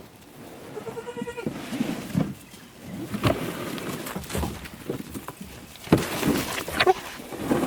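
A farm animal gives one short, steady call about a second in, amid rustling and scattered knocks.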